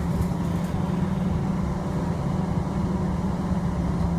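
Interior of a moving city bus: steady engine drone and road rumble with a constant low hum.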